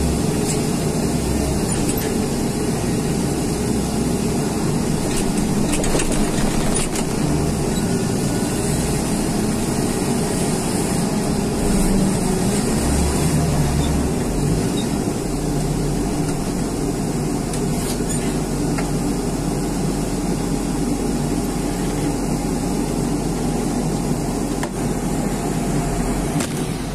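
A John Deere front wheel loader's diesel engine running steadily, heard from inside the operator's cab. The low engine note changes about halfway through.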